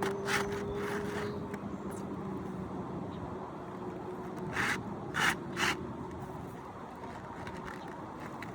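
Three short scraping noises a little past the middle, over a steady low engine hum, as a roof shingle is handled and worked back into place.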